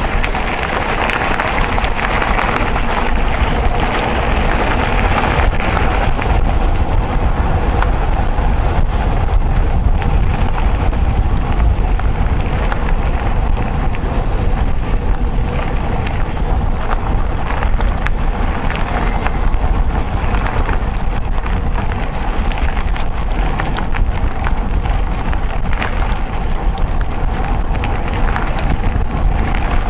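A mountain bike riding over a rough trail: wind rumbling on the microphone, tyre noise, and a steady stream of small rattles and knocks from the bike.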